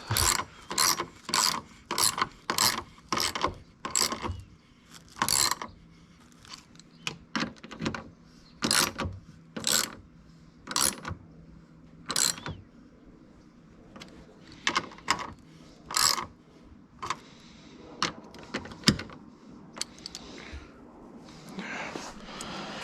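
Socket ratchet clicking as it tightens a 10 mm nut: a quick run of strokes about two a second for the first five seconds, then scattered single strokes.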